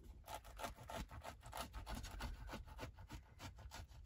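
A knife sawing through the toasted bun of a large sandwich on a plate: a run of faint, quick scraping strokes.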